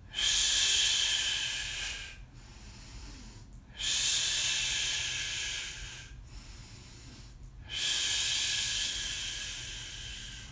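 A man's long, forceful breaths out, three of them about four seconds apart, each fading away. He is breathing through intense pain while pressing a soft-tissue implement into his chest where the pec meets the armpit.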